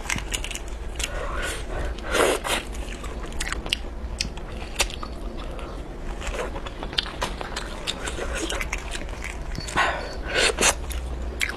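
Sauce-coated crayfish shells cracking and snapping as they are peeled by hand, with wet sucking and chewing of the meat. There are many short cracks, with louder clusters about two seconds in and again near the end.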